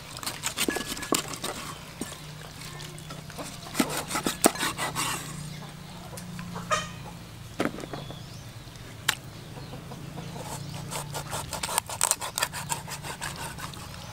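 Large knife cutting through a raw sea fish's flesh and bones on a wooden chopping board: scraping and slicing with scattered sharp taps as the blade strikes the board.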